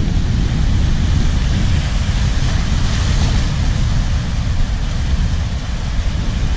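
Surf washing and foaming over shoreline rocks, mixed with wind buffeting the microphone as a steady low rumble; the wash swells about three seconds in.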